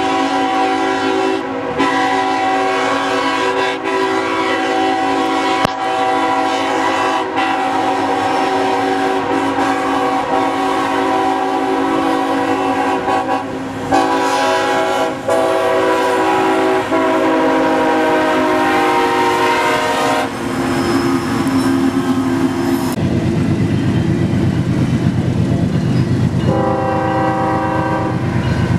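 Nathan Airchime K5HL five-chime horn on a GE Evolution-series (Gevo) locomotive, sounding loud, long blasts with a few short breaks for about twenty seconds. After that the rumble and wheel noise of the passing train take over, with one more short horn blast near the end.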